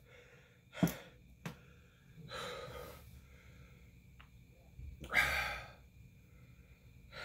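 A man breathing hard through his mouth against the burn of a super-hot sauce: a short sharp breath about a second in, then two longer exhales, the second one the loudest.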